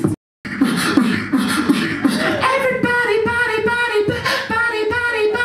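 Live beatboxing through microphones: rhythmic mouth-made drum beats, joined about two and a half seconds in by a sung vocal line carried over the beat. There is a brief dropout to silence just after the start.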